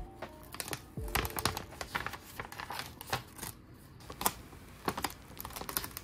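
Paper sticker sheet being handled and its cut waste layer peeled away from round stickers: irregular paper crackles, ticks and rustles.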